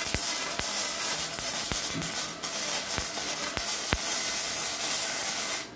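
Flux-core (self-shielded) wire welding arc from a Redbo MIG-120 on galvanized steel: a steady loud hiss and sizzle with sharp crackling pops every second or so. It cuts off abruptly near the end as the arc stops.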